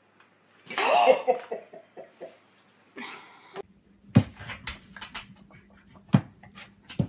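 A cat's short cry, rising and falling in pitch, then a few sharp knocks with lighter taps between them.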